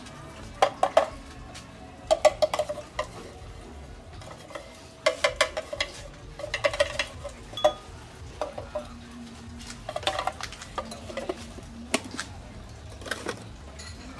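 A spoon clinking and scraping against the glass upper chamber of a siphon coffee maker, in short groups of sharp, ringing taps, as coffee grounds are spooned in.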